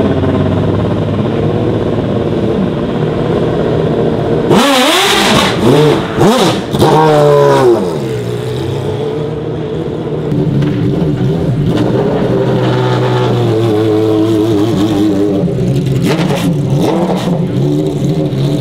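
BMW V12 LMR race car's V12 engine idling, then blipped several times in quick succession with sharp rises and falls in revs about four to eight seconds in, before settling back to a steady low-speed run.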